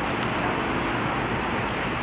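Electric ride-on toy car (a kids' BMW i8) driving: a steady motor whir with a fast, even, high ticking.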